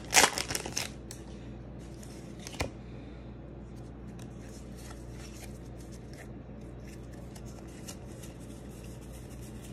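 Foil booster-pack wrapper crinkling and tearing open in the first second, then a single sharp click. After that, trading cards are handled and slid against each other in soft, scattered ticks over a steady low hum.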